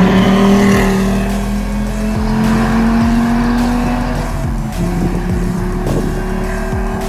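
VW Golf 4 V5's five-cylinder VR5 engine and exhaust accelerating, the pitch climbing slowly, then dropping about four and a half seconds in as it changes up a gear.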